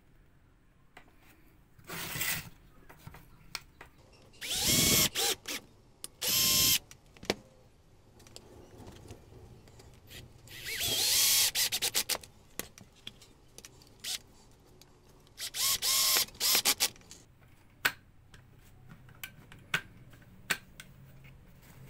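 Small cordless drill-driver running in about five short bursts, its motor whine rising and falling in pitch as it drives small screws. Light clicks and taps of parts being handled come in between.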